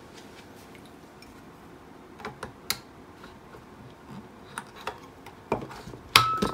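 Scattered sharp clicks and taps of a small screwdriver and fingers on the plastic case and fuse clips of a Hioki DT4282 multimeter as a cartridge fuse is worked out of its holder. The loudest is a single click near the end with a short metallic ring.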